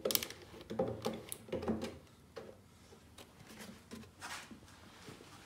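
Hands handling small engine parts and tools: a few light clicks and knocks in the first two seconds, then only faint scattered ticks.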